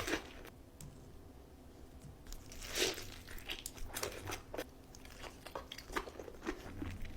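A person biting and chewing crunchy fried food close to the microphone: a sharp crunch at the start, a louder bite about three seconds in, then soft scattered chewing crunches.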